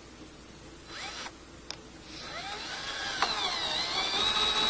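Cordless drill driving a screw. A short blip of the motor comes about a second in, then from about two seconds it winds up with a rising whine that dips once and settles into a steady high-pitched run, growing louder.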